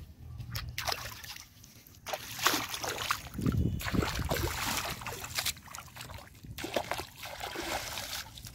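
Feet splashing and sloshing through shallow muddy pond water as a person wades: a run of irregular splashes, fainter for the first couple of seconds.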